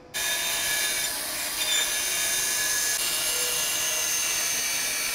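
Band saw running and cutting through a wooden board, rough-cutting it along a marked line. A steady hiss of the blade in the wood over the running saw.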